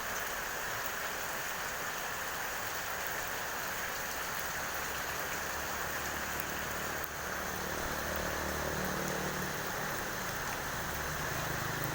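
Steady rain falling and pattering on surfaces, an even hiss with no letup. About seven seconds in, a faint low hum joins it.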